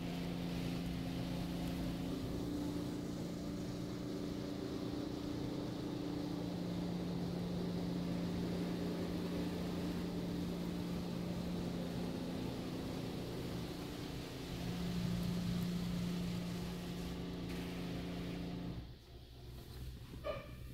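PDQ ProTouch touchless car wash spraying water onto the car, heard from inside the cabin: a steady rush of spray over a steady machine hum. It cuts off sharply near the end, followed by a short click.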